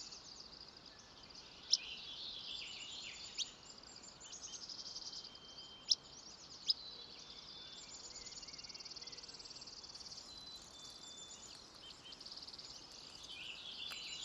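Natural forest soundscape: a steady, high-pitched chorus of crickets or other insects, with a handful of short, sharp bird chirps and a few falling bird notes over it.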